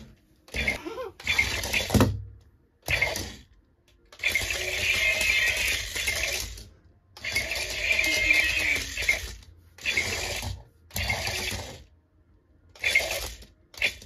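Small electric drive motors and gearbox of a remote-control tank-track toy robot whirring in stop-start bursts, from under a second to nearly three seconds each, as it is driven and turned.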